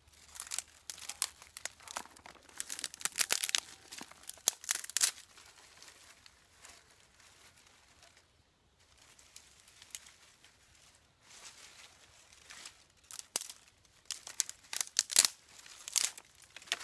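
Dry sticks and twigs being snapped by hand and dry leaves crackling as kindling is laid in a stone fire ring: two bouts of quick snaps and crunches with a quieter stretch in the middle.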